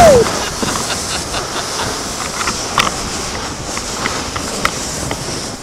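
Plastic kayak hull sliding down a snowy street: a steady hiss of the hull over packed snow, with scattered sharp ticks and knocks.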